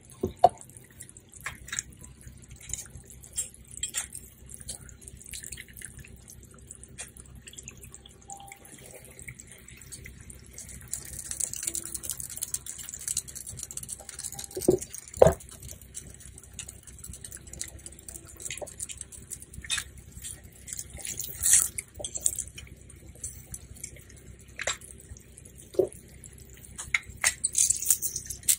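Lemon juice dripping and splashing into a pan of hot garlic-butter sauce as a lemon half is squeezed by hand, with scattered small ticks and a couple of louder clicks. A steady low hum runs underneath.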